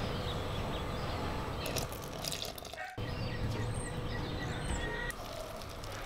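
A silicone spatula stirring flour and a poured-in milk-and-egg mixture in a ceramic bowl: soft wet scraping with small knocks against the bowl, broken by a short gap about halfway through.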